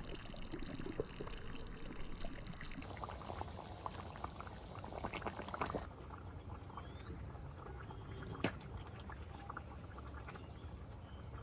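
Watery cooking sounds from a pot of fish curry: liquid splashing and bubbling with many small pops. The sound changes abruptly twice, and a single sharp knock comes about eight seconds in.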